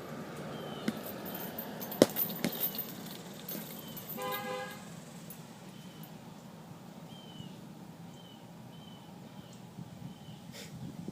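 A quick flurry of gloved punches thudding into a heavy punching bag about two seconds in, the first the loudest. A car horn honks once for about half a second a couple of seconds later. Faint short high chirps recur throughout.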